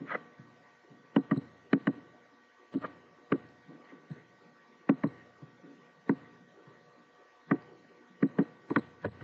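Computer mouse clicking: about a dozen sharp clicks spread unevenly, several in quick pairs.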